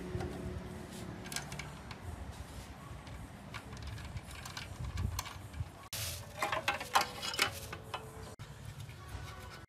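Light metal clinks and knocks as an alternator is handled and set against its mounting bracket on an engine block. A denser cluster of clatter comes about six to seven seconds in.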